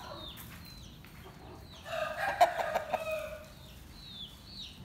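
A fighting rooster crowing once, about two seconds in, for roughly a second, over short, high, falling cheeps from a chick that repeat every half second or so.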